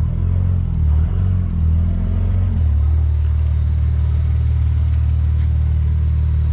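Toyota Supra's engine running, its revs shifting up and down for the first couple of seconds, then settling into a steady low idle.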